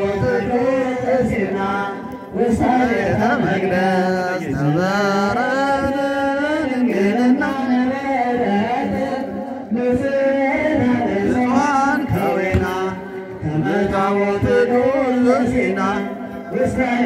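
Male voice chanting an Ethiopian Orthodox hymn through a microphone and loudspeaker, in long held notes that slide up and down in pitch, with short breaks between phrases.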